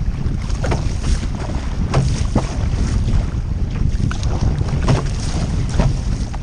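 Wind buffeting a GoPro's microphone in a steady low rumble, with repeated sharp water splashes from a surf ski being paddled on open ocean.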